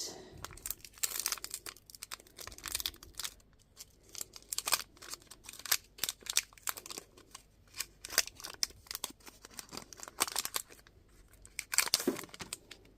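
Foil wrapper of a Pokémon trading card booster pack crinkling and tearing as it is opened, in many irregular sharp crackles with a denser burst near the end.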